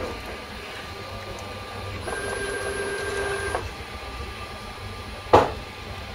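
Desktop 5-axis CNC mill running with a steady motor hum. About two seconds in, a whine of several tones starts and cuts off about a second and a half later as an axis drive moves the spindle head. A single sharp knock comes about five seconds in.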